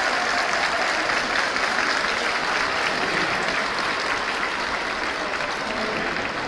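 A large crowd applauding, a dense steady clatter of many hands that slowly dies down.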